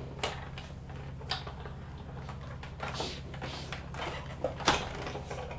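Sizzix Big Shot die-cutting machine being hand-cranked, rolling a cutting-plate sandwich with a star die and masking tape through its rollers: scattered plastic clicks and scrapes, with a sharp knock near the end.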